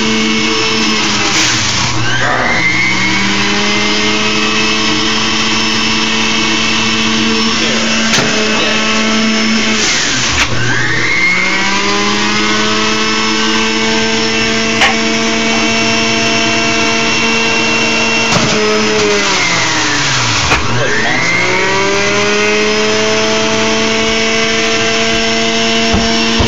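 Breville centrifugal juicer motor running with a steady whine. Three times, about 2, 10 and 20 seconds in, the pitch drops sharply and climbs back as the motor bogs down under fresh produce fed into the chute and recovers.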